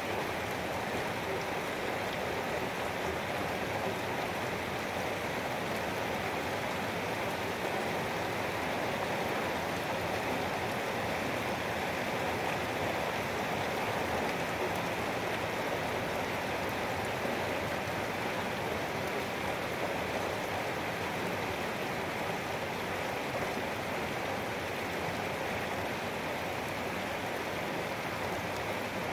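Steady rain falling: a dense, even hiss with no single drops or other events standing out.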